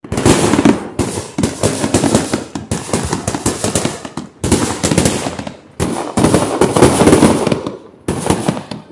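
Fireworks display going off: rapid strings of bangs and crackles come in clusters of one to two seconds, each dying down briefly before the next begins.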